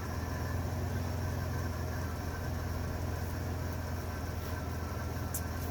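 1998 Dodge Grand Caravan's V6 engine running steadily with a low, even hum, on a van whose transmission has failed and will barely move.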